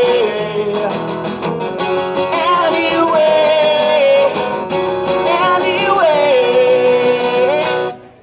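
Live solo performance: a man sings long, held, wavering notes over a strummed acoustic guitar. The music stops abruptly near the end.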